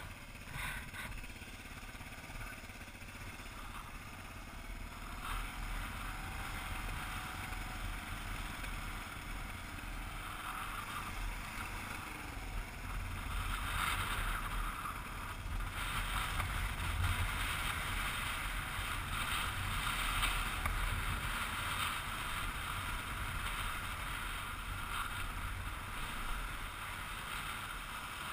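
Kawasaki KLR single-cylinder dual-sport motorcycle running along a gravel road, its engine mixed with steady wind and tyre rush. It gets louder about halfway through.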